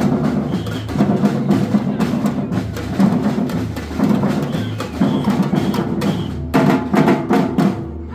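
Marching drum band playing a steady, loud rhythm on drums and percussion.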